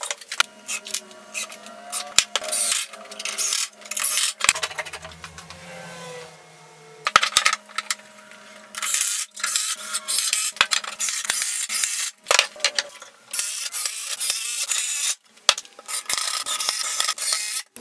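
A quick run of workshop sounds from a wooden workbench build: sharp knocks and clicks of lumber and clamps being handled, broken up by several bursts of a power tool running for a second or two.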